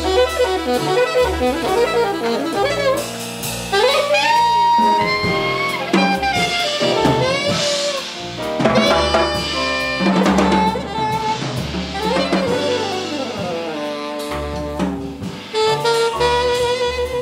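Tenor saxophone improvising a jazz solo of fast runs and held notes over a rhythm section of drum kit and double bass.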